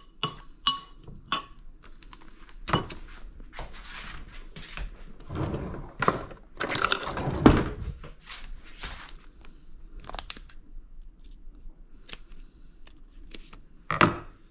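Dishes and utensils being handled: a few short ringing clinks in the first second and a half, then rustling and scattered knocks, with a sharp knock about seven and a half seconds in and another near the end.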